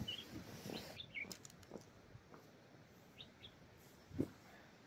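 Small birds chirping in short, scattered calls over faint rustling. A soft thump comes about four seconds in as a sleeping bag is laid down on a ground sheet.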